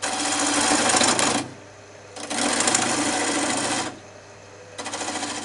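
Wood lathe turning a wooden spindle while a turning tool is pushed into the spinning wood three times, cutting it down to marked diameters: three rasping cuts about a second and a half each, with the lathe's steady hum between them.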